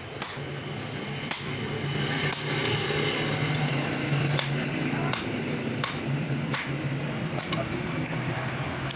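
Hammer striking a chisel into a truck leaf spring, sharp metallic strikes about once a second, with a steady low hum underneath.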